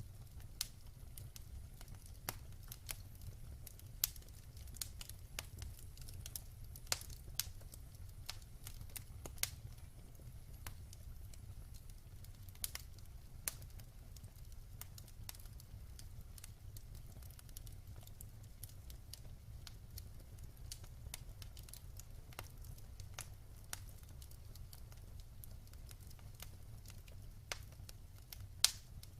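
Wood fire crackling in a fireplace: irregular sharp pops and snaps over a steady low rumble of the flames, with a louder pop near the end.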